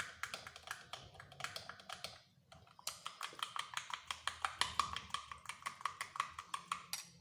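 A spoon stirring a paste in a glass, clicking against its sides in quick strokes, several a second, with a brief pause about two seconds in.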